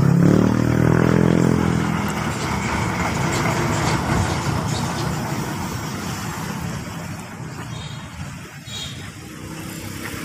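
A motor vehicle passing on the road: its engine is loud at first and rises in pitch over the first two seconds, then fades away into a steady wash of road noise.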